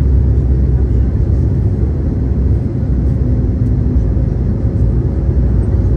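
Steady, loud, low rumble of a jet airliner's engines.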